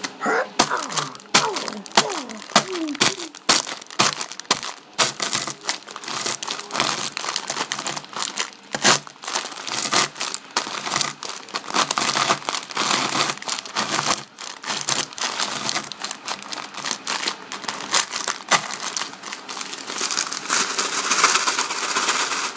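A packet or wrapper crinkling and crunching as it is handled, with many sharp crackles and snaps throughout.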